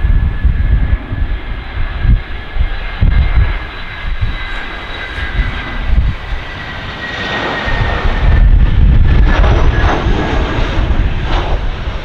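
Airbus A319 jet engines on a landing: a steady high whine that falls slightly in pitch, with a louder rush of engine noise that peaks about eight to ten seconds in. Gusty wind buffets the microphone.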